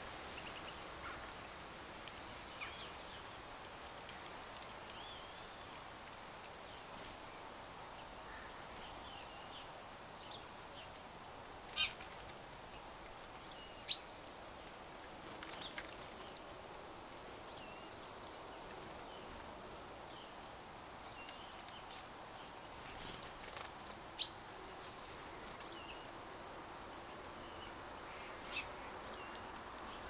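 Small songbirds calling with many short, faint high chirps scattered throughout, over a steady background hiss. A few sharp taps stand out, three of them louder than everything else.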